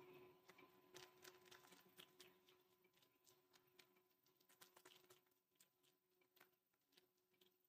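Faint, irregular soft taps of wet fingertips patting egg-and-onion batter flat on a plastic-lined plate, thinning out toward the end, over a faint steady hum.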